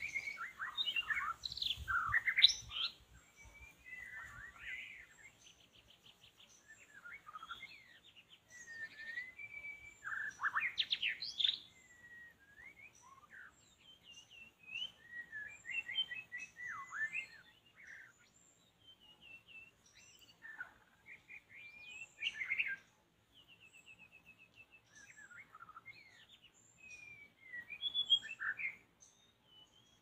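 White-rumped shama (murai batu) singing: rich, varied whistled phrases and chirps in bouts of a few seconds, separated by short pauses.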